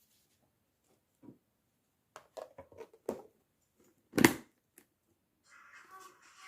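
A few light clicks and knocks, like objects being handled, then one much louder knock about four seconds in.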